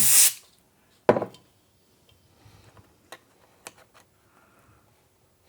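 A rushing hiss cuts off just after the start. About a second in comes one sharp click, then a few faint light ticks from the small parts of an open laptop being handled while a RAM module is swapped.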